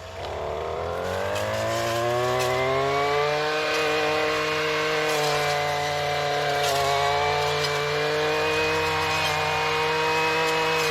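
Weed whacker engine, fitted with a chainsaw-chain brush blade, throttling up from idle with a rising whine over about three seconds. It then holds at high revs with small dips and a few faint ticks as the blade cuts through tough, tangled vines.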